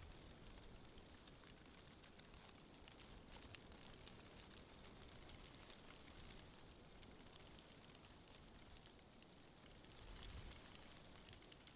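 Faint, steady wind ambience with a low rumble and a light, fine crackle of tiny ticks.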